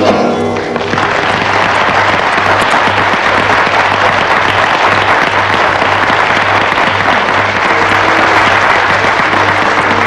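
A concert audience applauding steadily and loudly, taking over about a second in as the song's last sung note and guitar chord die away. A low steady hum from the old recording runs underneath.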